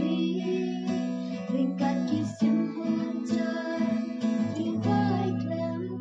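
Song with strummed acoustic guitar and a sung vocal.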